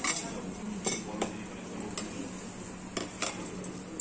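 Metal forks and plates being set down on a table: a handful of light clinks, with a steady low hum underneath.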